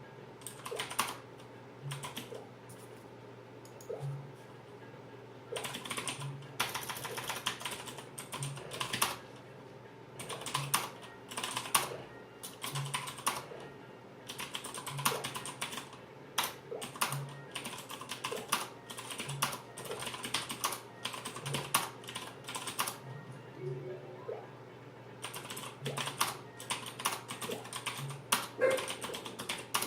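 Typing on a MAXTILL Blade Pro mechanical keyboard with clicky Kailh blue switches. Keystrokes come sparsely for the first few seconds, then in fast runs of rapid typing with short pauses.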